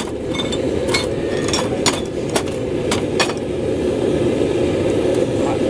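Steady roar of a running forge, with several light metallic clinks in the first three seconds or so as steel tools are handled.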